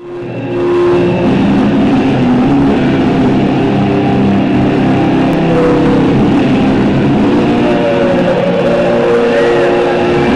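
Loud entrance music playing over the hall's speakers, fading in during the first second and then holding steady.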